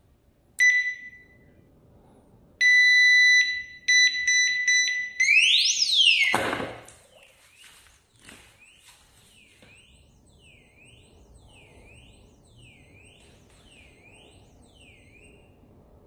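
KVYX alarm disc lock's electronic alarm: a short beep, a long steady beep, a run of quick beeps, then a siren sweeping up and down. The lock splashes into a bucket of water about six seconds in, and the alarm keeps wailing underwater, muffled and quieter, in a repeating falling-and-rising chirp about once a second, still working while submerged.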